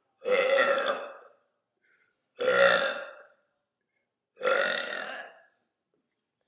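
A woman burping three times in a row, each burp about a second long and fading out, about two seconds apart.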